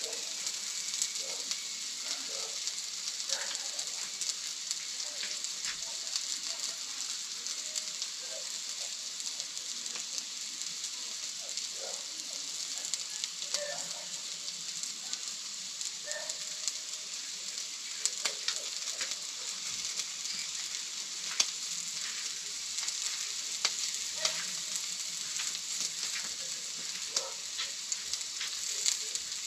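Meat sizzling on a barbecue grill: a steady hiss with scattered crackles and pops of fat dripping onto the heat.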